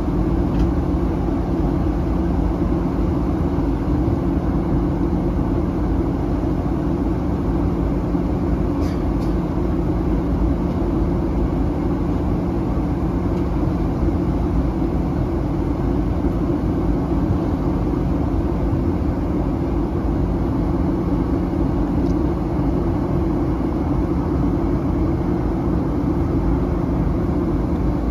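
Steady cabin drone inside a Boeing 737-900 during its descent: engine and airflow noise heard from a window seat, an even rushing noise over a low hum that does not change.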